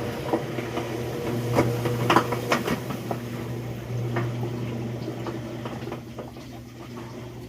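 Brastemp washing machine draining: a steady pump hum under running water, with scattered light clicks and knocks from the machine.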